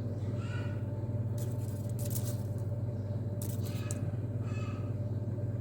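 A steady low hum, with a few short high-pitched calls and brief rustling noises over it.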